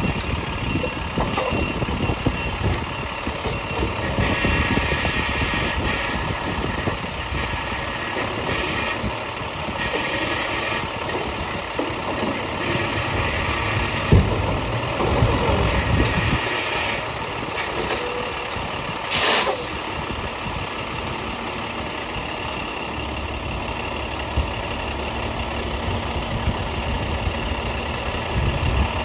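International garbage truck's diesel engine running at the curb while the Heil STARR side-loader body packs out its load, growing louder in several short stretches in the first half. A short sharp hiss comes about two-thirds of the way through.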